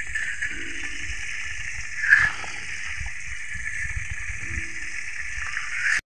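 Catfish deep-frying in a wok of hot oil: a steady sizzle and bubbling, with one louder spatter about two seconds in.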